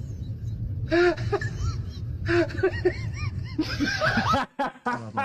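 Snickering laughter in several short bursts of rising and falling pitch, over a steady low hum.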